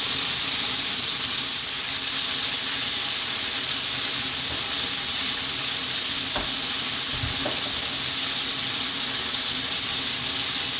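Flour-coated dory fish pieces frying in hot sunflower oil in a wok: a steady, even sizzle.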